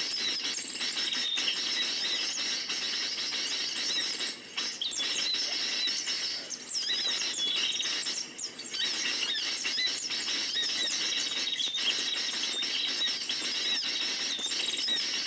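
A flock of small birds chirping and chattering continuously, with many high, quick calls overlapping.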